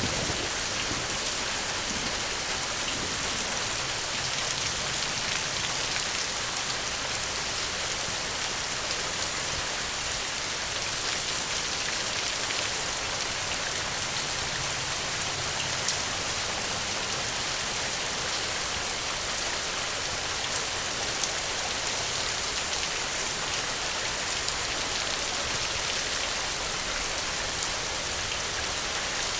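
Steady rain falling: an even hiss with scattered louder drops ticking through it.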